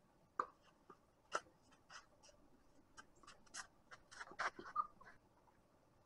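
Tennis rally: a string of sharp pops from the ball meeting racket strings and bouncing on the court, spaced a second or so apart at first and coming thicker and louder about four to five seconds in.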